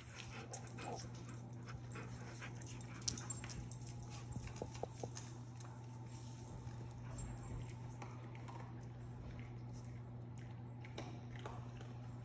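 A dog at play with a rope toy, faint, over a steady low hum, with a few light clicks about four to five seconds in from its claws on the hardwood floor as it trots off.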